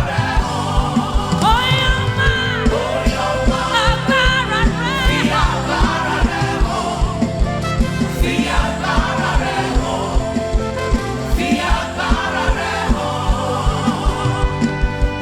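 Gospel song: singing voices with wavering sustained notes over a band with a steady drum beat.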